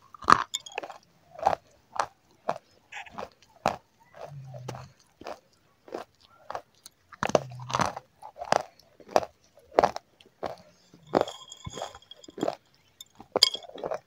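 Close-miked chewing of chicken momos: a steady run of short wet mouth clicks and smacks, about two a second.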